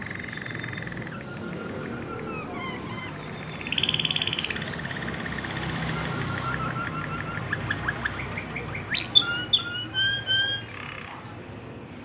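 Waterslager canary singing its song tours: whistled gliding notes and rolling trills, with a loud, fast trill about four seconds in and a run of sharp, separate notes near the end.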